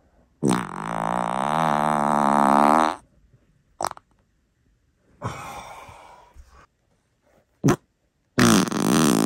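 A run of human farts. A long, loud, wavering-pitched fart starts about half a second in and lasts about two and a half seconds, followed by a short pop, a hissing fart that fades away, another short pop, and a second long, loud pitched fart near the end.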